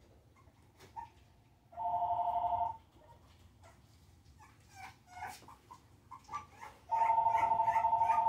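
A phone rings twice, each ring about a second of two steady notes with a fast trill, the second coming about five seconds after the first. Between the rings, four-week-old Exotic Bully puppies whimper and yelp more faintly.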